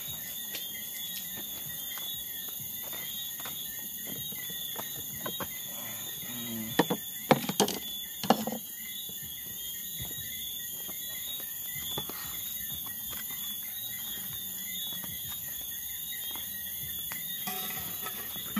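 Insects chirring steadily in a high, unchanging chorus, with scattered faint clicks. A cluster of sharp knocks comes about seven to eight seconds in.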